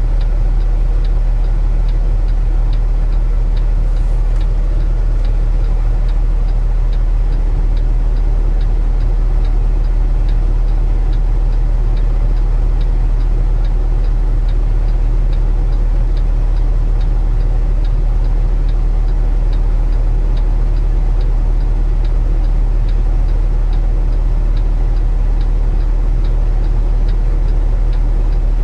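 Semi truck's diesel engine running, heard from inside the cab as a steady low drone, with the indicator relay clicking at a regular pace of about two ticks a second.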